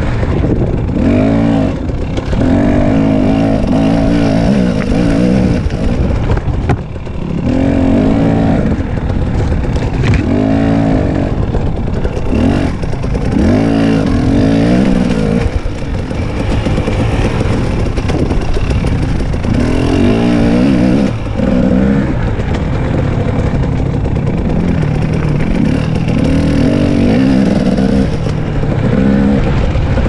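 Two-stroke Husqvarna TX 300 dirt bike engine working hard under the rider. The revs rise and fall again and again as the throttle is opened and closed.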